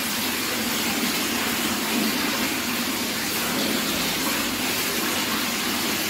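Small fountain jets spouting steadily and splashing into a tiled pool, a continuous even rush of water.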